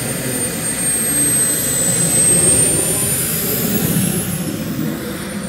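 JetCat P300 Pro model turbine in the Krill ARES XL jet, idling on the ground with a high thin whine over a steady rushing exhaust. At the very end it is shut down, and its whine starts to fall as it spools down.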